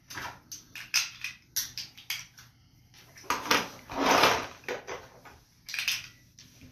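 Plastic toy car-kit parts (wheels, bolts and toy wrenches) clicking and clattering against each other and the tabletop as they are picked up and sorted, with a denser stretch of clatter a little past halfway.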